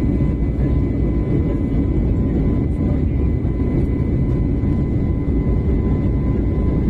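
Airliner cabin noise in flight: the steady low rumble of the turbofan engines and airflow, with a faint steady whine above it.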